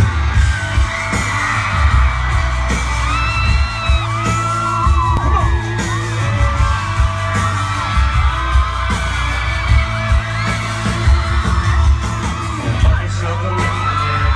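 Live country band playing loudly over a concert PA, with heavy bass and drum beats, singing, and crowd members whooping and yelling.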